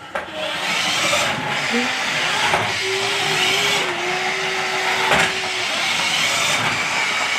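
Remote-control toy Lamborghini Veneno car being driven, its small electric motor and wheels whirring steadily, with a few knocks along the way.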